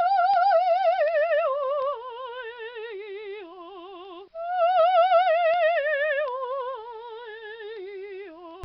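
Woman singing in operatic style, a solo voice with wide, even vibrato. It descends step by step in a phrase, breaks off about four seconds in, then repeats the same descending phrase.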